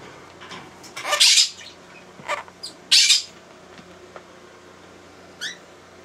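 Blue-crowned conure giving three loud, harsh calls about one, two and three seconds in, then a short, quieter call near the end. This is an agitated bird that wants out of its cage.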